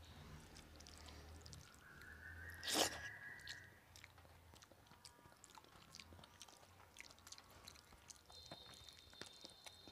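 Quiet close-miked eating sounds: a person chewing rice and fish by hand, with many small wet mouth clicks and rice being mixed by hand on the plate. A sharp click about three seconds in is the loudest sound, and a faint steady high tone comes in near the end.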